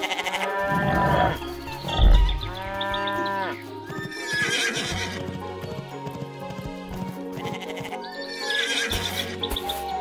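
Background music with several short farm-animal calls over it, and a low thump about two seconds in.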